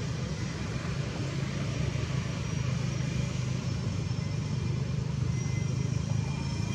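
A steady low rumble, like a motor running, holds without a break; faint high thin tones creep in during the second half.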